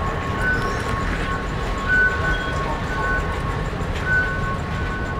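Metro station background noise: a steady low rumble, with two high steady tones that sound on and off.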